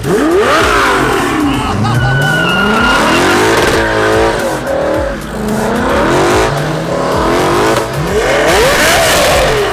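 Lexus sedan doing a burnout: the engine revs up hard and drops back about four times while the tyres spin and squeal on the pavement.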